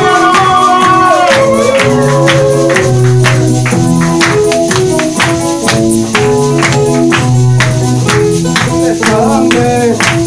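Live gospel praise music: held keyboard chords changing every second or so over a steady beat of sharp percussive strikes. A voice sings during the first few seconds and again near the end.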